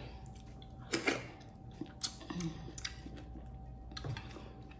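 Cooked lobster tail shell being pulled apart by hand: a few scattered soft clicks and cracks.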